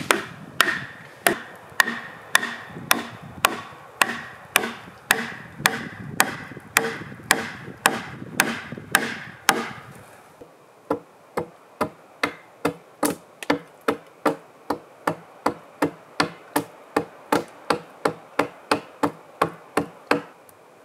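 Repeated, evenly spaced strikes of a hand tool on wood, about two a second. After about ten seconds a quicker run of sharper strikes follows.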